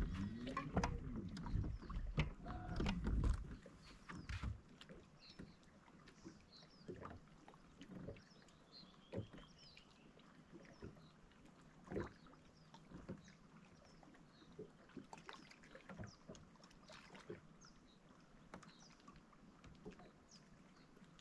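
Small water sounds and knocks around a fishing boat on a lake, louder and busier in the first few seconds, then faint with scattered light knocks.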